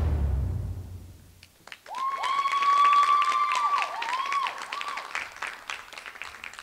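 The last of the music dies away, and after a short hush an audience breaks into applause. A loud, held whistle rings over the clapping and dips in pitch a few times, then the clapping thins out.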